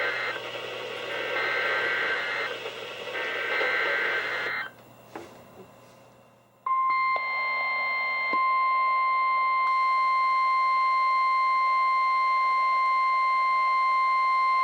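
NOAA Weather Radio Emergency Alert System signal opening a Severe Thunderstorm Warning. First come the buzzy, warbling SAME digital header bursts: the tail of one and two more, each about a second long with short gaps. After about two seconds of quiet, the weather radio's steady single-pitch 1050 Hz warning alarm tone starts about seven seconds in and holds.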